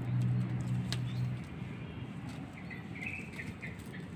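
A low steady hum that fades out about a second and a half in, then a short run of faint, high bird chirps near the end.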